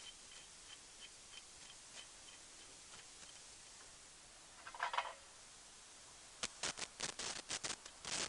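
Faint, even ticking about three times a second. A short metallic rattle comes midway, then a quick run of sharp clicks and clinks near the end as nuts and metal parts are handled and threaded on by hand.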